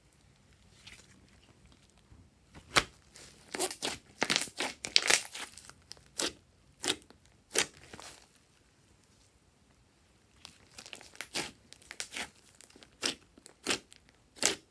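Glossy slime being squeezed and stretched by hand, giving irregular sharp clicks and pops in two spells, with a lull of about two seconds between them.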